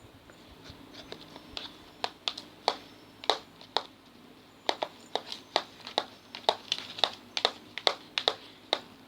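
A sticky glue-and-foam slime mixture being stirred in a container, giving irregular sharp clicks and pops, a few a second, that start about two seconds in and grow denser after about four and a half seconds.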